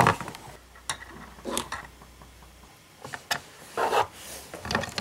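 A few sharp clicks and light rubbing of hard plastic from a Pinypon water park toy playset as a doll is fitted into its changing booth and the booth's small hinged door is closed.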